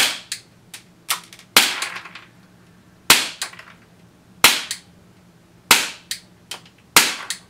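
Elite Force Glock 17 Gen 4 CO2 blowback airsoft pistol fired six single shots on a fresh CO2 canister, about one every second and a half. Each sharp crack is followed by a quick smaller snap.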